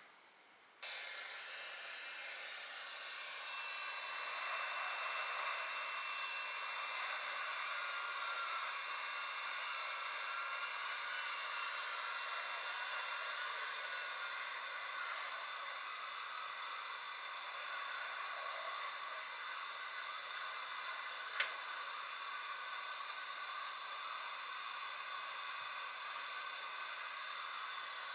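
A small motor-driven blower starts suddenly about a second in and runs steadily: a rush of air with faint high whining tones. A single sharp click about 21 seconds in.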